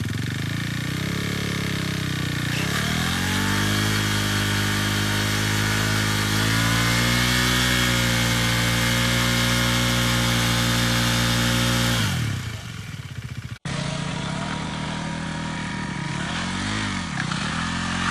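KTM Duke 390's single-cylinder engine revving up and held at high revs during a rear-tyre burnout. The revs fall away about twelve seconds in, and after a short break the engine runs on at lower, wavering revs.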